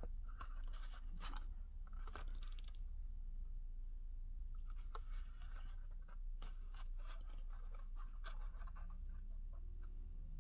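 Carded Hot Wheels packaging, a plastic blister on a cardboard card, handled and turned over: crinkling, rustling and small clicks in two spells, over a steady low hum.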